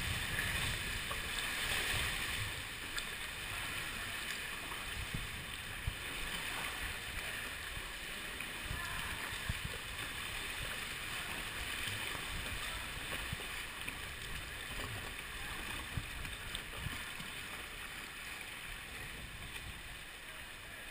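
Sea water sloshing and lapping around a sit-on-top kayak as it is paddled through a sea cave and a narrow rock channel. A steady low rumble runs under it, with a few small knocks.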